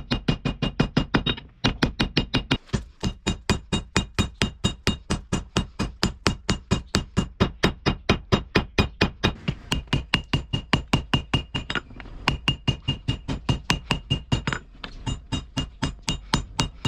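Hand hammer forging a red-hot steel bar on an anvil: rapid, even blows about five a second, each with a bright ring from the anvil, pausing briefly a few times.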